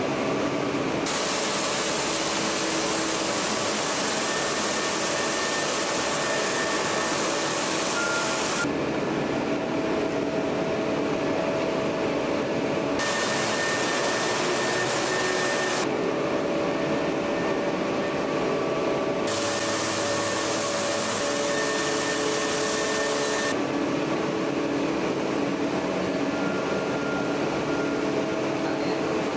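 Ring rolling mill working a red-hot steel ring: a steady machinery drone with a few held hums. Three times a loud hiss starts and stops abruptly over it.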